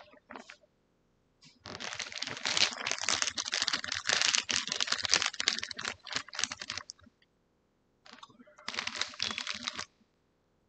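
Dense, rapid clicking and crackling close to the microphone, in two stretches: about five seconds, then a short pause, then about two seconds more.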